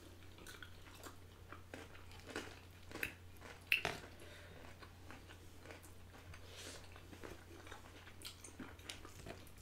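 Mouth sounds of chewing macaroni and cheese, with scattered soft clicks of chopsticks and a spoon against the food and tray. A couple of sharper clicks stand out about three to four seconds in.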